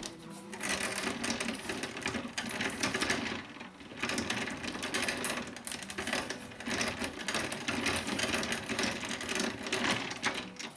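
Shoe-repair sewing machine running in quick stitching runs through leather, stopping briefly about three and a half seconds in.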